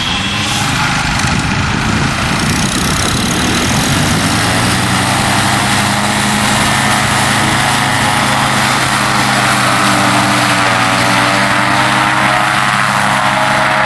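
Paramotor trike's engine and propeller running at high power for the takeoff roll, holding a steady pitch from about four seconds in after a rougher, noisier start.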